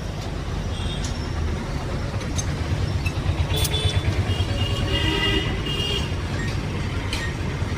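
A vehicle engine running with a low, uneven rumble amid street traffic, louder in the middle; a horn sounds briefly a few times around the middle.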